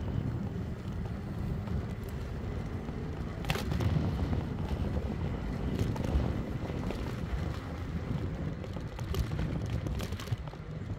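Wind buffeting the microphone on a moving e-bike, over a low rumble from the ride across brick paving, with a few short knocks.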